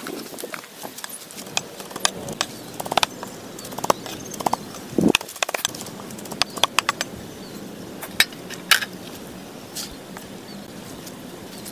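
Cleaver chopping a fish and prahok mixture on a round wooden chopping block: irregular sharp knocks, sometimes several in quick succession, over a steady background hiss.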